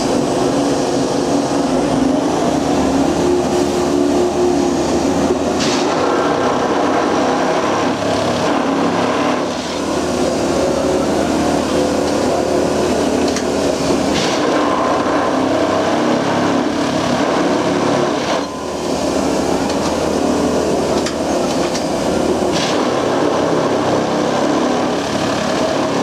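Austrian-built multiple tie tamper at work with its sound-proofing cover raised, its tamping units plunging into and lifting out of the ballast: a loud, continuous mechanical din with sharp hissing bursts every few seconds and two brief dips in level.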